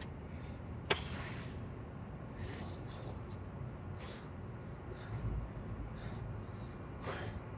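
A man breathing hard during burpees, with a series of short, forceful exhalations. One sharp slap about a second in.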